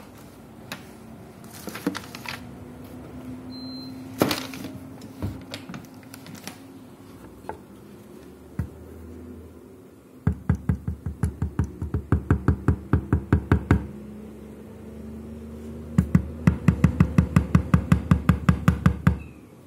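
Plastic waste toner container from a Samsung color laser printer being knocked rapidly against a table to shake waste toner out onto paper. The knocks come in two runs of a few seconds each, about five a second, after some scattered taps and clicks.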